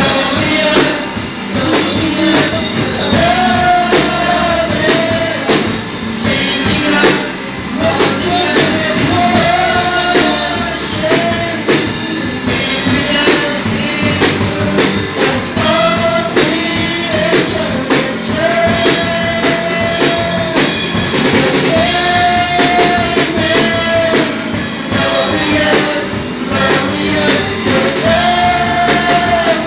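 A live rock worship band: male and female singers on microphones singing long held notes over electric guitar and a drum kit keeping a steady beat.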